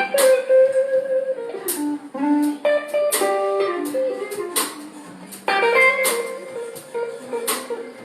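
Live blues band playing an instrumental passage: guitar lead lines of single, gliding notes over drum strikes that fall on a steady beat.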